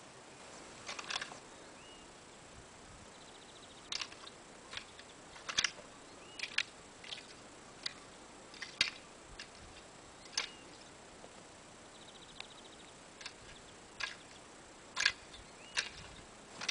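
Irregular sharp clicks and short scrapes, a second or more apart, of hand hoes striking and dragging through stony tilled soil. Faint bird chirps in the background.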